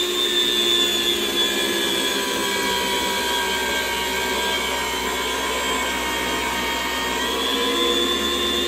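Electric meat slicer running, its motor and spinning circular blade giving a steady whine while a ribeye is pushed through the blade in thin slices. The pitch sags slightly in the middle and comes back up near the end.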